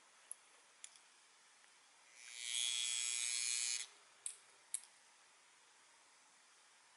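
A brief buzzing whir from the small clock motor and its gears. It builds up over about half a second, holds for over a second, then cuts off. A few light clicks of small gear parts being handled come before and after it.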